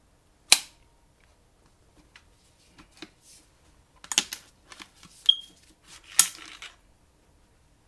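Metal clicks and knocks from the Panzerarms AR12 12-gauge shotgun's parts as its barrel is worked loose and pulled out of the receiver, with a short metallic ping about five seconds in. The sharpest knocks come about half a second in and about six seconds in.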